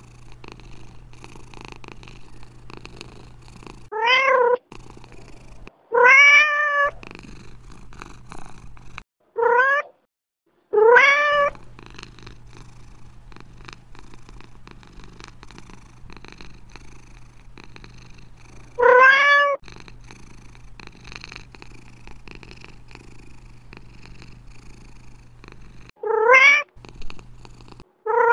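Domestic cat purring steadily, broken about seven times by short meows that rise in pitch, the purr dropping out under each meow.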